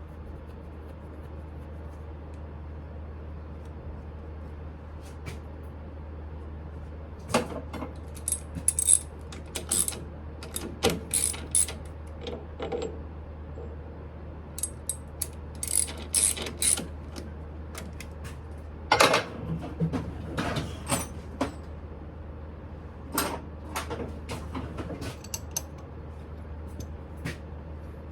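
Metal tools and parts being handled at a lathe: irregular clinks and clanks in clusters, metal knocking on metal, over a steady low hum.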